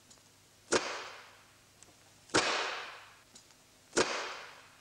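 Gasoline-and-air mixture ignited by a spark in a glass demonstration cylinder with a piston: three sharp bangs about one and a half seconds apart, each followed by a short fading rush.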